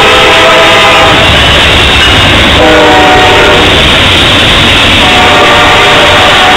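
Norfolk Southern diesel locomotives leading an intermodal freight train sound the air horn in three long blasts while passing close by. The horn's pitch drops as the lead units go by, about two and a half seconds in. Under the horn is the loud rumble of the engines and the rolling cars.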